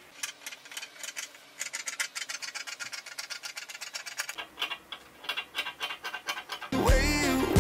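Large fabric scissors cutting through crepe dress fabric spread on a wooden floor: a quick, irregular series of blade snips. Near the end, loud pop music with a bass line starts suddenly.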